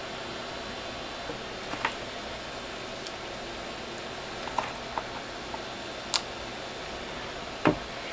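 Light handling noise over a steady room hiss: a few small clicks from plastic Molex connectors and wires being handled, then a single louder knock near the end as a metal stepper motor is set down on the wooden bench.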